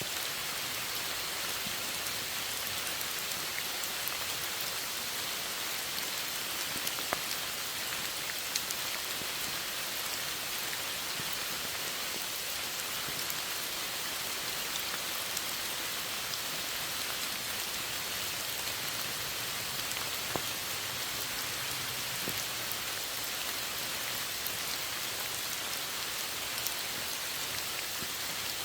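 Steady rain falling, a dense even hiss with scattered individual drop ticks.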